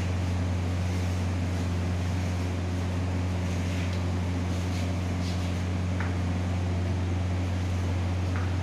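Steady low mechanical hum, unchanging throughout, with a few faint ticks.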